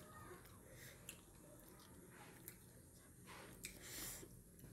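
Near silence, with a few faint clicks and soft squishes from a spiny sea urchin being picked apart by hand and eaten raw.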